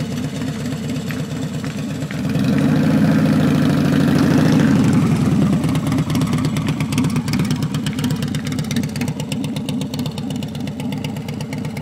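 Custom chopper motorcycle's V-twin engine running. It grows louder for a few seconds from about two seconds in as the bike pulls away, then drops back to a lower, uneven lope as it rides off slowly.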